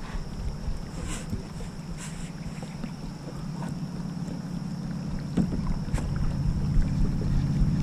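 A low, steady rumble with a faint hum, growing louder, from a canoe moving on the water, with a few light clicks and knocks.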